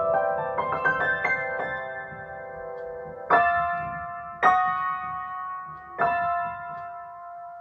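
Solo piano improvisation: a quick flurry of notes at the start, then three chords struck one by one, each left to ring and fade.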